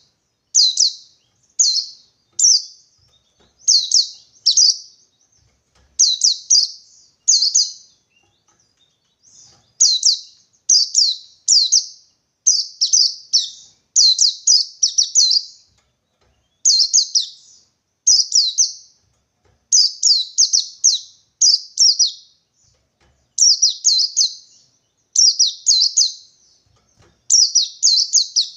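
A white-eye (pleci) singing its 'ngalas 123' song, a rival-seeking challenge call: short, high, rapid chirp phrases in quick groups of two to four, with brief pauses between groups.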